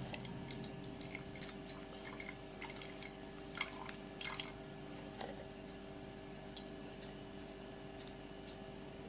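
Coconut milk dripping and trickling through a mesh strainer as a hand presses ground coconut pulp, with faint wet squishing and small ticks, over a steady faint hum.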